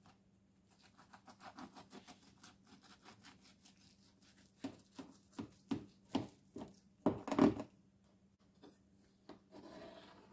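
Serrated knife sawing through a baked lasagna with a browned cheese top: a run of soft scratchy strokes, then louder separate cuts from about halfway, the loudest a little past the middle.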